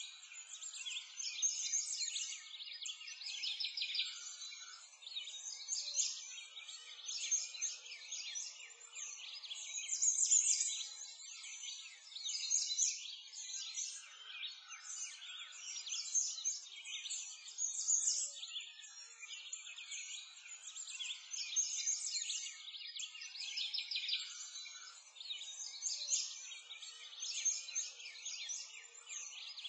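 A dense chorus of many birds chirping and singing together, all high-pitched, with no low sounds under it.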